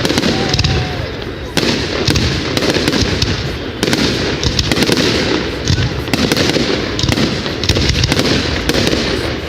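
Fireworks going off in a dense, continuous crackle of rapid bangs, the barrage changing character about a second and a half in and again near four seconds.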